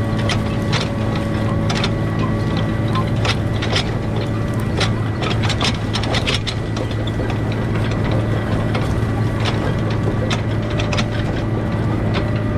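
Case IH 7120 tractor's diesel engine running steadily under load while pulling a corn planter, with irregular clicking and rattling from the machinery.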